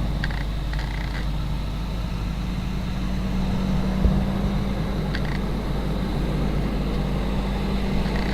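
Kubota SVL74 tracked skid steer's diesel engine running steadily, with a few faint clicks.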